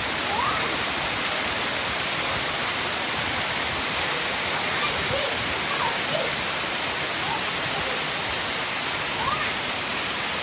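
Waterfall rushing steadily: a loud, even wash of falling water. A few faint short rising chirps sound over it.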